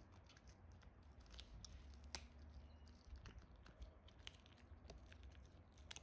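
Small dog chewing a dried fish treat: faint, irregular crunches and clicks of teeth on the hard treat, the sharpest about two seconds in.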